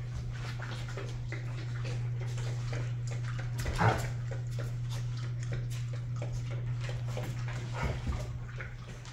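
Adult Rottweiler and Rottweiler puppy play-fighting: scuffling, with claws clicking on a hardwood floor, and one brief louder noise about four seconds in. A steady low hum runs underneath.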